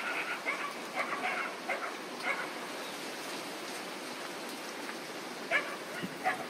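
A dog yapping in short, repeated calls, in a cluster over the first two seconds or so and again near the end, over a steady background hiss.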